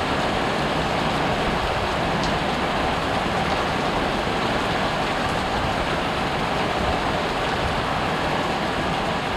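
Heavy thunderstorm rain pouring down, a steady unbroken rushing hiss.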